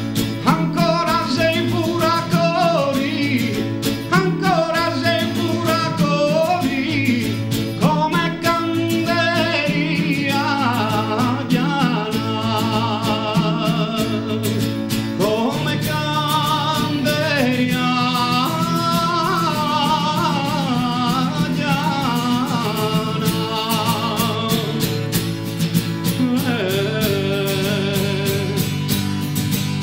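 Gallurese filugnana sung by a male vocal group: a solo voice winds through a long, ornamented melody over other men holding low sustained chords, with a guitar accompanying. The held chord shifts at each new phrase.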